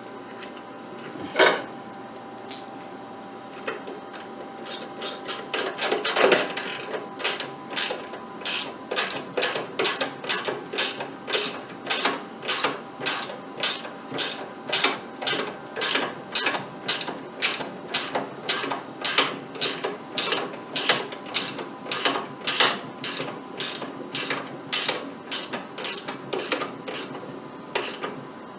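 Hand ratchet clicking as a 5/16 bolt is run in, in a steady rhythm of about two clicks a second.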